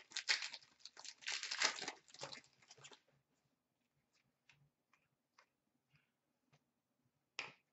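Crinkling of a foil card pack wrapper and cards sliding against each other as a freshly opened pack of hockey cards is handled. It dies down about three seconds in to a few faint ticks as the cards are flipped through, with one short sharp rustle near the end.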